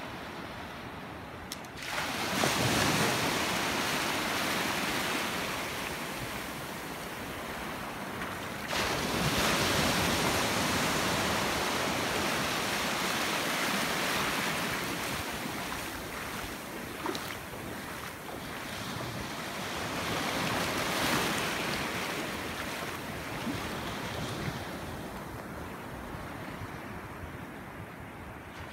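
Small sea waves breaking and surf washing through the shallows, with wind buffeting the microphone. The noise surges abruptly about 2 s in and again about 9 s in, and swells once more around 21 s.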